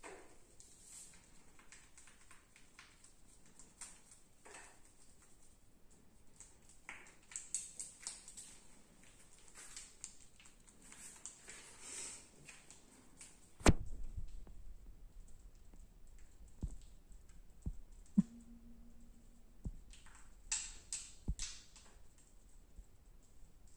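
Faint rustling and light clicks of hands and a cotton wad working at the navel and against the skin and towel. One sharp knock about halfway through is the loudest sound, and a brief low hum follows a few seconds later.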